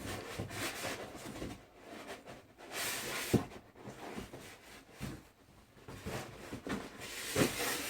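Rustling and knocking of TV packaging being handled and searched, with a few short knocks among the rustles.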